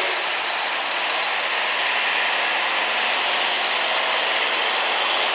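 Street-stock gas pickup truck's engine running hard under load while pulling the weight sled, a steady, even rush of noise with no rise or fall.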